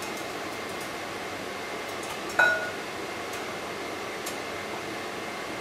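A single ringing clink, a utensil striking a glass mixing bowl, about two and a half seconds in, over a steady background hiss.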